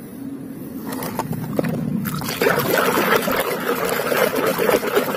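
A hand swishing and scrubbing a toy in a basin of muddy, foamy water: splashing and sloshing, quiet at first and growing busier from about two seconds in.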